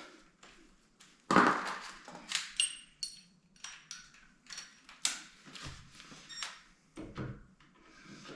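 A string of irregular knocks and clacks from a wooden vanity cabinet door and its handle hardware being handled and fitted, the loudest knock about a second in, a few of them with a short metallic ring.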